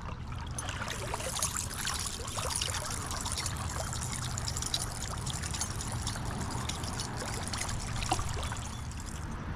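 Creek water trickling and splashing, with many small crisp drips and splashes over a steady low rumble of current. The higher splashing sound cuts off suddenly near the end.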